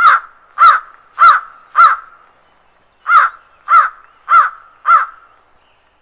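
Male riflebird calling: eight loud calls in two series of four, a little over half a second apart, with a break of about a second between the series.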